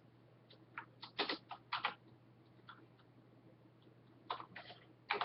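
Computer keyboard keys clicking in short, irregular clusters as words are typed, with quiet pauses between the clusters.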